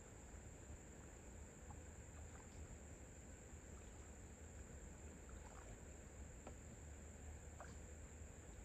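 Near silence with a faint, steady high-pitched insect drone, like crickets chirring, and a few faint short ticks scattered through it.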